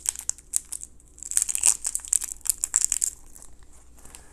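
Plastic wrapper of a hard candy crinkling and tearing as it is unwrapped by hand, a run of sharp crackles that stops about three seconds in.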